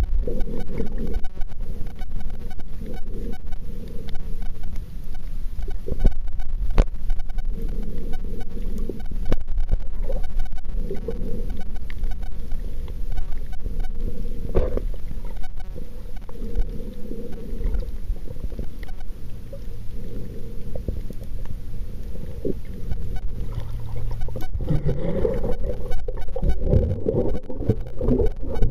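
Muffled, irregular low rumbling and sloshing of water heard through a submerged waterproof camera, with scattered faint clicks and one sharp click about seven seconds in.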